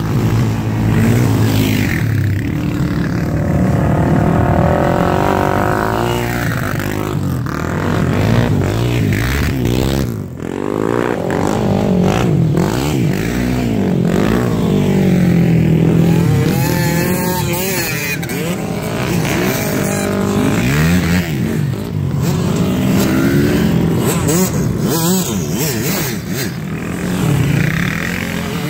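Several sport quads and enduro motorcycles passing one after another, engines revving up and dropping off repeatedly with gear changes, the notes overlapping.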